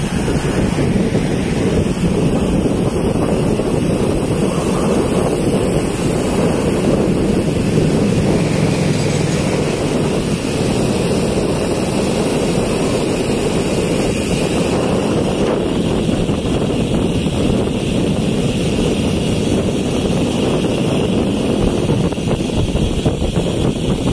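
Steady wind rushing over the microphone of a camera riding along on a road bike at speed.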